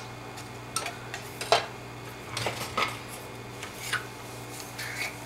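Wire whisk clinking and scraping against a stainless steel saucepan of thick cheese sauce, in a few scattered strokes, the sharpest clink about a second and a half in.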